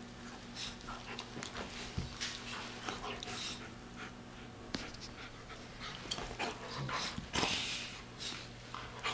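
German Shepherd puppies panting and breathing hard in short, quick bursts while they play-wrestle, with a louder breathy burst about seven and a half seconds in. A steady low hum runs underneath.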